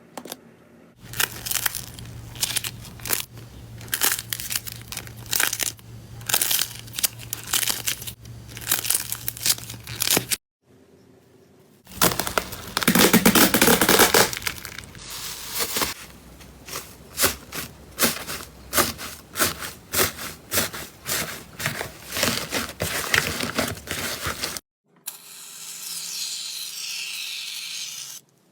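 Slime being squeezed, poked and stretched by hand close to the microphone, making quick crackling, popping clicks in irregular runs. A louder, denser crunching stretch comes about halfway, and near the end there is a steadier hiss. There are several separate clips with short breaks between them.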